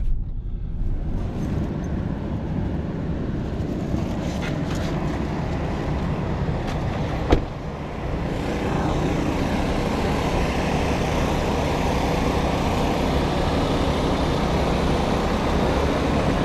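Car driving, heard from inside the cabin: steady engine and road rumble with tyre noise, a single sharp click about seven seconds in, and the road noise growing louder just after.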